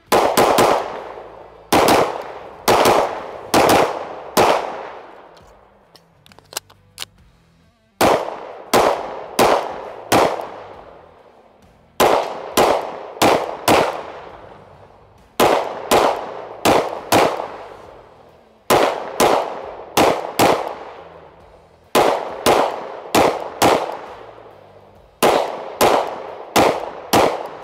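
Springfield Armory Prodigy 1911 DS 9mm pistol firing. The shots come in quick strings of about four, the strings a few seconds apart, each shot with a short echo.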